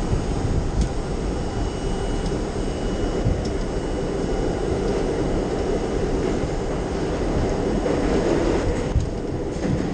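R32 subway train running at speed through the tunnel, heard from inside the car: a steady rumble of wheels on rail with a few light ticks.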